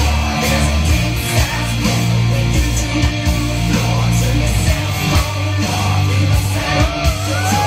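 Loud rock music with guitar, a steady bass line and drums, played over a sound system.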